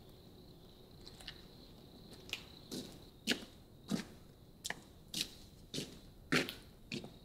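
Footsteps on gravel, one every half second or so, starting a couple of seconds in and growing louder as the walker comes closer. A steady high cricket chirring carries on underneath.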